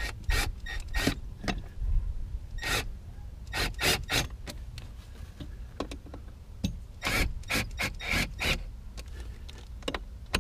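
Milwaukee cordless drill/driver with a right-angle adapter run in short, grating bursts, a dozen or so in three clusters, driving screws. A steady low rumble lies underneath.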